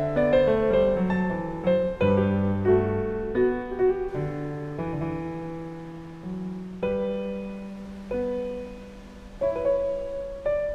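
Background piano music: gentle notes struck one after another and left to ring and fade.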